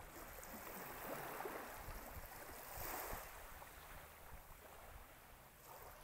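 Small waves washing gently onto a sandy shore: a faint, soft hiss that swells about a second in and again around three seconds.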